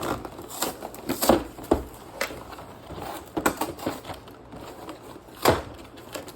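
A gingerbread house kit's box and packaging being opened and handled: irregular crinkling, rustling and sharp taps and knocks, with a louder knock about five and a half seconds in.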